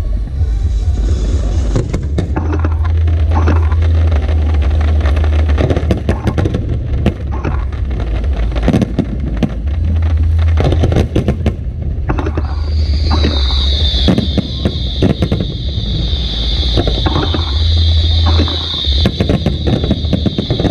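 Fireworks display: a continuous low rumble of bursts with many sharp crackling pops, joined by a steady high hiss about twelve seconds in.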